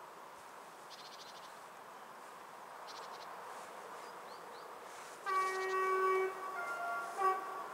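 A locomotive air horn sounds the Rp1 'attention' warning signal about five seconds in. It gives one loud note of about a second, then a note that shifts in pitch, and a short final blast near the end. The horn belongs to a PKP class 201Eo (modernised ET22) electric locomotive approaching with a freight train.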